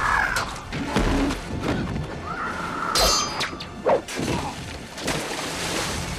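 Film action-scene sound effects of a violent struggle: a run of heavy thuds, crashes and smashing hits, with strained cries arching over them. The hardest hits land about a second in, at about three seconds and just before four seconds.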